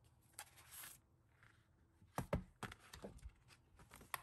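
A paper notebook is handled and its pages flipped: a brief soft rustle of paper, then about two seconds in a couple of light knocks against the desk followed by a quick run of page flicks, all quiet.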